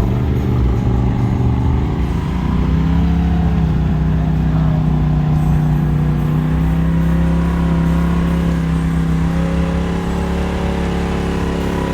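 Polaris RZR Pro XP side-by-side engine revving up over the first few seconds, then held at steady high revs.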